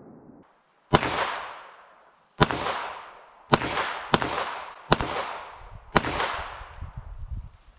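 Taurus 92 9mm semi-automatic pistol firing six single shots at an uneven pace, two of them in quick succession, each crack trailing off in an echo.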